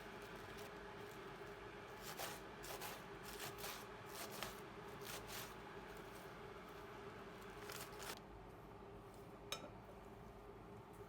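Faint kitchen handling sounds: a run of short rubbing and scraping strokes over a steady low hum, with a single sharp click about two-thirds of the way in.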